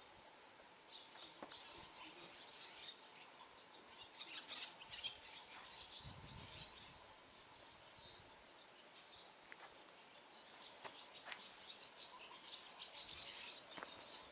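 Faint bird chirps, about a third of the way in and again near the end, with a few footsteps on stone paving.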